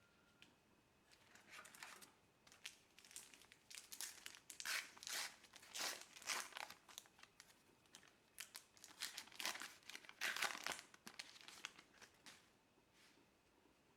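Trading-card pack wrapper being crinkled and torn open by hand, in irregular bursts that are loudest about ten seconds in.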